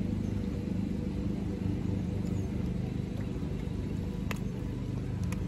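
Steady low rumble of a boat engine running on the lake, with a couple of faint clicks near the end.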